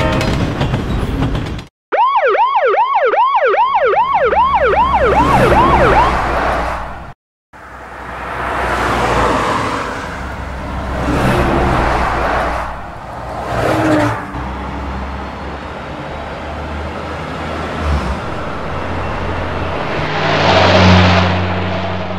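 An emergency-vehicle siren yelping fast, about three rises and falls a second, for about four seconds before fading out; then road traffic with engines running and vehicles passing by, one passing loudest near the end.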